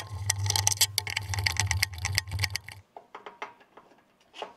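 Rapid, dense clicking of a Phillips screwdriver working the screws of a snowblower's electric-starter switch, over a steady low hum, for about three seconds. After that only a few scattered faint clicks.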